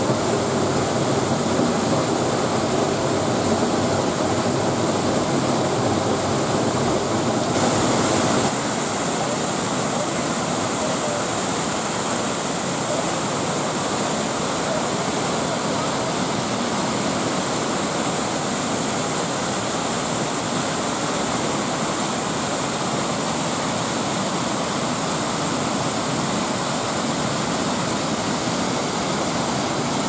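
Steady rush of falling water from the Upper Düden Waterfall, heard from behind its curtain of water. About eight seconds in it changes to a slightly quieter, hissier rush of river cascades tumbling into a pool.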